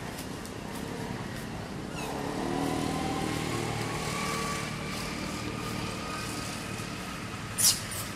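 A motor vehicle's engine humming at a distance, swelling about two seconds in and slowly easing off, with a short sharp high squeak near the end.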